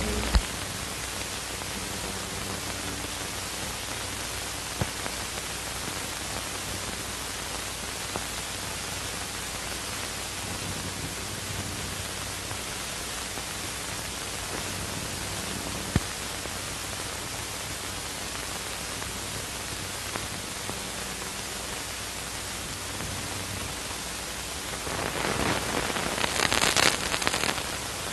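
Steady hiss of an early sound-film soundtrack, with a few sharp clicks scattered through it. In the last few seconds a louder, rough burst of noise rises above the hiss.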